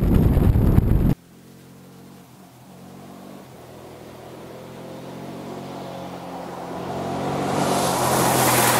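About a second of wind buffeting on a rider-mounted camera, then a Suzuki V-Strom's V-twin engine approaching on a gravel road, its steady note growing louder over several seconds. Near the end the hiss of tyres on gravel rises as the bike comes close.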